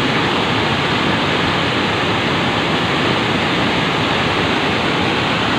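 Waterfall in flood, muddy floodwater pouring over the falls and a weir into a churning torrent: a loud, steady rush of water.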